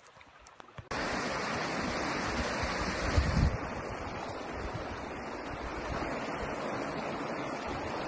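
Wind buffeting the phone's microphone, a steady rushing that begins abruptly about a second in, with a heavier low gust around three seconds in.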